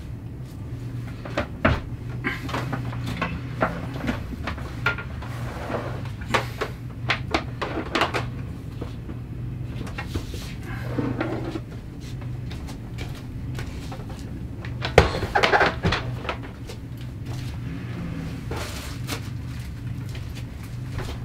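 Cabinet door opening and closing with knocks and clatter as items are handled in the cupboard, the loudest clatter about fifteen seconds in, over a steady low hum.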